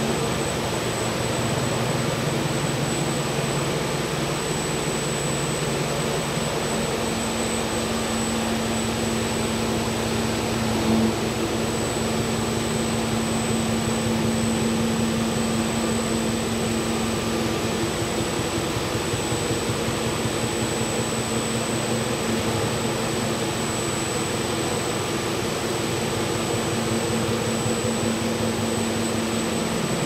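SKP PR 5000 VG industrial marquee washing machine running: a steady mechanical hum and rush with a constant drone. A lower drone drops away about seven seconds in, and there is a single brief knock about eleven seconds in.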